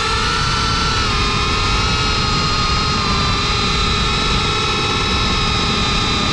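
FPV quadcopter's brushless motors and propellers, heard from the onboard GoPro: a steady whine of several stacked tones over a rush of wind and prop noise. The pitch rises slightly at the start and then holds level in cruise.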